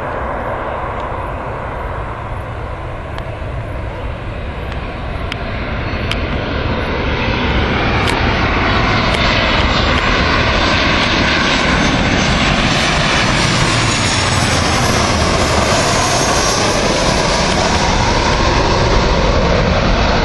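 Boeing 737-300's CFM56 turbofan engines on landing approach as the jet flies past. The engine noise grows louder about a third of the way in and then stays loud, with a whine that slides lower in pitch as the plane goes by.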